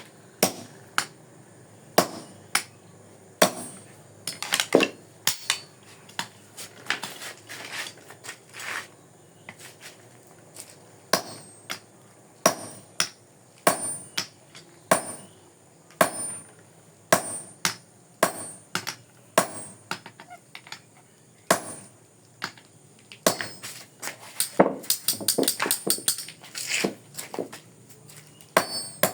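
Hammer blows on steel, cutting metal by hand: sharp strikes, mostly about one a second with a quicker run of blows about 25 seconds in, each with a short metallic ring.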